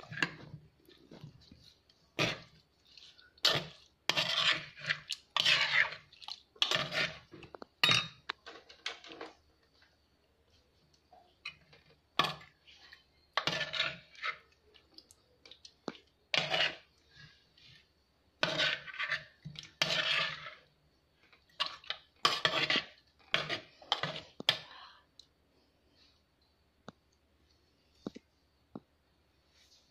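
Steel spoon scraping and clinking against a chatti curry pot while stirring a wet fish-curry mixture, in many short irregular strokes that stop a few seconds before the end.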